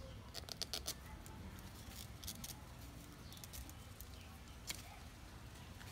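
Faint crackling clicks of a utility knife blade cutting into a young papaya stem below a rooted air layer, to sever it from the parent plant. The clicks come in short clusters about half a second in, just past two seconds, and near five seconds.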